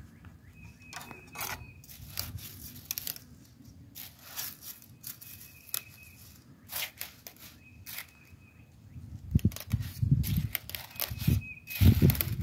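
Dry spaghetti strands clicking and rustling against each other and the metal pot as a slotted spatula presses the bundle down into the water. The handling gets louder about two-thirds of the way in, with heavier knocks and scrapes.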